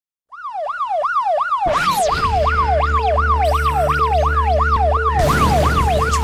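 Siren sound effect going quickly up and down, about three cycles a second, each a fast rise and a slower fall. About a second and a half in, a deep steady drone and other layered effects join it.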